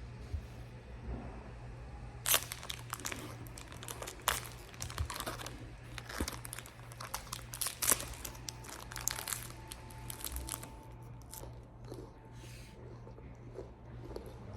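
Crinkling and crackling handling noise, a quick run of sharp crackles for several seconds, over a steady low hum.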